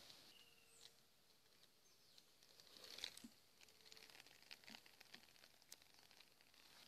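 Near silence, with faint scattered rustles and ticks, a little denser about three seconds in and again around five seconds.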